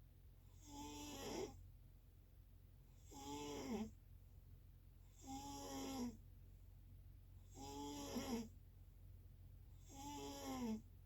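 Snoring: five snores about two seconds apart, each a short rasping breath with a pitched tone that drops away at its end.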